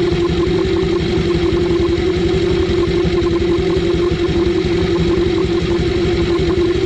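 Honda Dio 110cc scooter's single-cylinder engine idling steadily.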